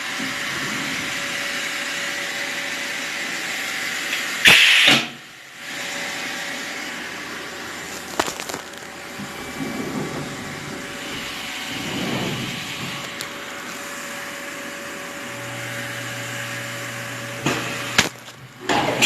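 CNC machine running with a steady whirring noise and a steady spindle tone. There is a brief loud burst about four and a half seconds in, and a low hum joins near the end.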